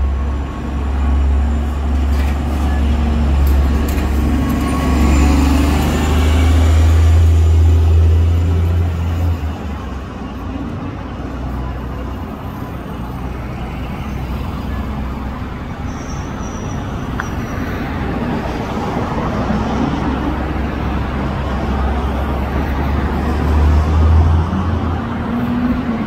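Orion VII diesel-electric hybrid transit bus pulling away from a stop, its engine a loud low rumble for the first nine seconds or so, then fading into steady city traffic. A second low vehicle rumble swells briefly near the end.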